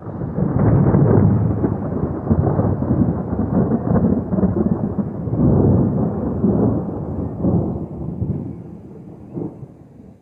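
Thunder: one long rolling rumble that swells up within the first second, rolls on in waves for several seconds, and fades away near the end.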